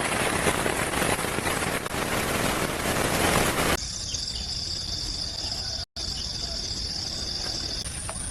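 Heavy rain hissing, then after an abrupt cut, insects chirring in a steady high-pitched drone, with a second, higher band of chirring joining near the end.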